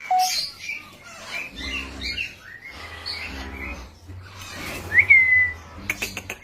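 Bird calling in a run of short chirps and whistles, the loudest a sharp whistle that sweeps up and then holds about five seconds in, followed by a few quick clicks near the end.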